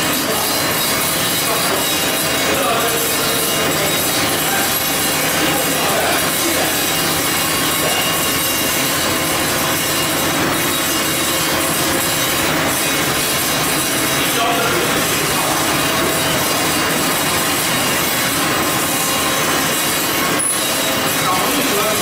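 Popcorn production line machinery running: a steady, even mechanical noise of the popper and conveyors, with no pauses.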